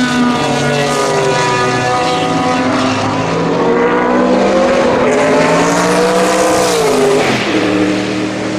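Mercedes-Benz Sauber C11 Group C prototype's biturbo V8 running at racing speed, its note climbing steadily for several seconds, then falling sharply about seven seconds in as the car goes past.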